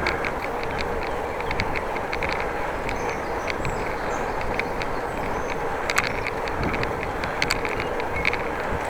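Bicycle being ridden: steady rumble of tyres and air, with light irregular clicks and rattles from the bike.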